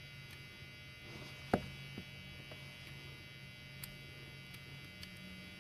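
Steady low electrical hum with a few small clicks of lock parts being handled on the bench: one sharp click about a second and a half in, a softer one half a second later, and a faint tick near the end.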